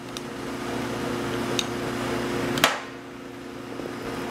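Salad tongs tossing dressed bow-tie pasta salad in a glass bowl: a soft wet rustling of the pasta, with a few sharp clicks of the tongs against the glass, the loudest a little past halfway. A steady low hum runs underneath.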